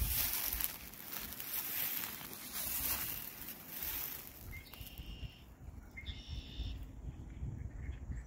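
A rustling, rushing noise on the microphone for the first few seconds, then two short bird calls, one just under five seconds in and one a second later.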